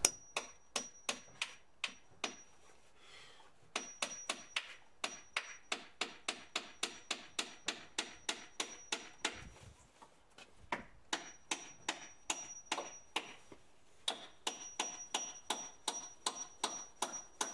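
Hammer driving nails into pallet wood: runs of quick, even blows, about three a second, many with a short metallic ring, broken by brief pauses.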